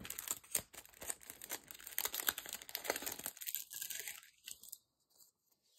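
Crinkling and rustling of a clear plastic packet and its card backing as a sheet of self-adhesive rhinestones is pulled out, a quick run of small crackles that stops a little over three seconds in.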